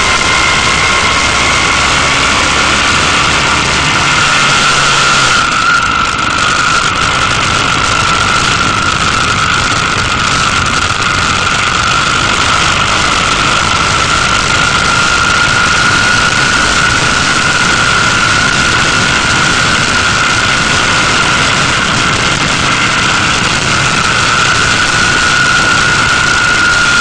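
Motorcycle engine running at steady road speed with a steady high whine that drifts slightly in pitch. Heavy wind and road noise on the bike-mounted camera's microphone.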